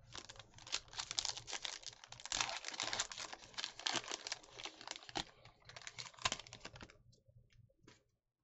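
Foil wrapper of a 2020 Donruss Optic football card pack crinkling and tearing as it is worked open by hand. There are dense crackles for about seven seconds, then only a few scattered clicks near the end.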